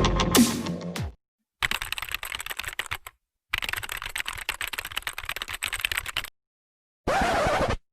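Computer keyboard typing: two runs of rapid key clicks separated by dead silence, ending in a short noisy burst near the end. The clean cuts to silence suggest added sound effects.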